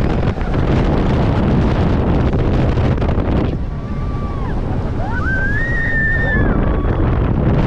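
Wind buffeting the microphone: a loud rushing that eases for a few seconds in the middle, where a faint high tone rises, holds and falls away.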